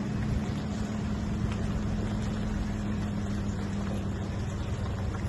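Steady drone of a vehicle on the move: a constant low engine hum with road noise, holding an even pitch throughout.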